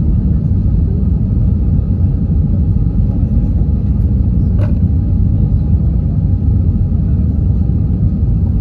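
Steady low rumble inside the cabin of an Airbus A320 during its descent to land: engine and airflow noise. A faint click sounds about four and a half seconds in.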